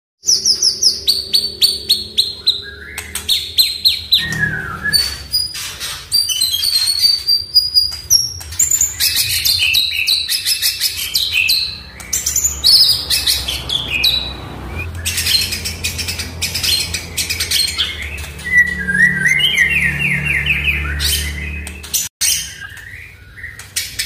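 White-rumped shama (murai batu) singing a long, varied song of rapid repeated notes, falling trills and whistles, with a brief break a couple of seconds before the end.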